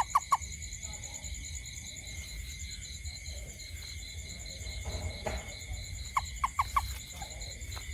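Night insect chorus trilling steadily, with a frog or toad calling two short series of about four quick sharp notes, one right at the start and another about two-thirds of the way through.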